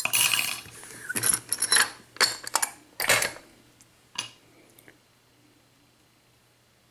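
Metal clicks and clinks from handling a freshly picked lock cylinder and picking tools, a quick run of sharp knocks that stops about four seconds in.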